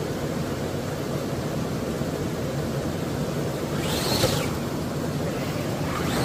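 Electric RC scale crawler straining up a rock slab, a steady drone of motor and tyres. A short scraping burst comes about four seconds in, and another near the end as the truck tips over backwards onto its roof.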